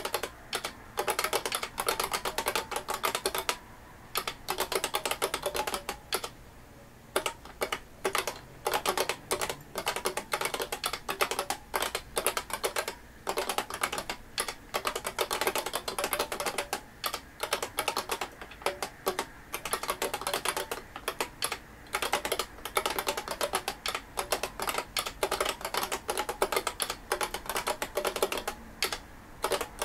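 IBM 5251 beam spring keyboard being touch-typed fast: a dense run of sharp keystroke clacks, pausing briefly about four seconds in and again about six seconds in.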